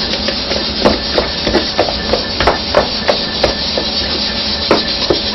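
A spoon beating noodle dough by hand in a bowl, working it until it blisters: rhythmic slapping knocks about three a second, starting about a second in with a short break near the end, over a steady hiss.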